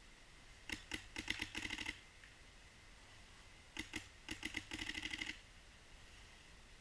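Paintball marker firing two volleys of shots, each starting with a few spaced pops and speeding up to rapid fire of about ten shots a second.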